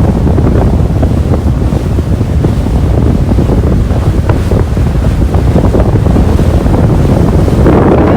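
Heavy wind buffeting the microphone on a moving boat, a steady loud rumble with rushing water under it.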